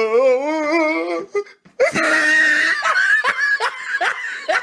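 A girl laughing hard: a long wavering high-pitched squeal, then after a brief pause a loud shrieking laugh that breaks into quick pulses of laughter, about three a second.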